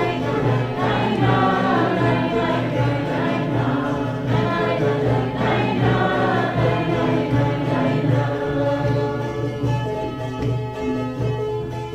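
Several voices singing together over a steady low drone. The voices thin out over the last few seconds while the drone carries on.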